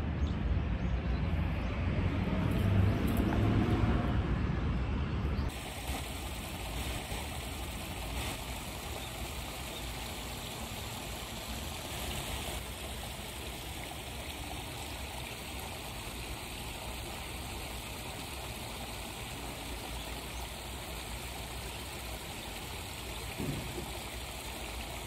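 A low rumble for about the first five seconds, then a steady trickle and gurgle of running water at a koi pond.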